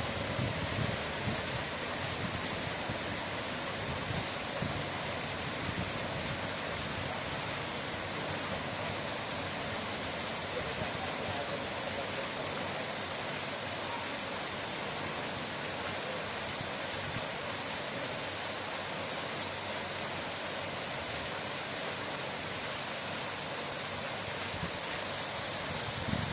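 Steady rushing water, an even hiss strongest in the high range, with no breaks or changes.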